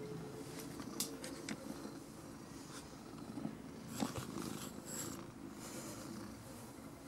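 Domestic cat purring steadily, close to the microphone. A few sharp knocks and rustles come as its fur brushes the camera, about a second in and again about four seconds in.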